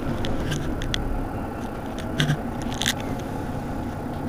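Vehicle engine idling, a steady low rumble heard from inside a car behind the windscreen, with a few scattered short clicks.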